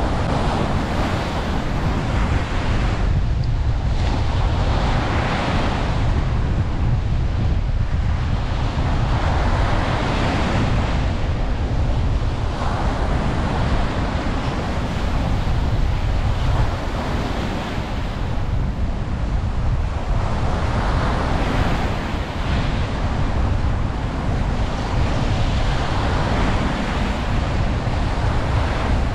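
Ocean waves breaking on a beach, each swell of surf rising and falling every few seconds over a constant low rumble, with wind on the microphone.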